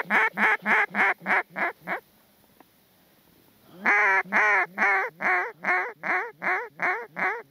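Mallard hen duck call blown in long descending sequences of quacks, about four notes a second, each sequence starting loud and tapering off: a hail or comeback call to ducks circling overhead. One sequence trails off in the first two seconds, and after a short pause a second loud one starts about four seconds in.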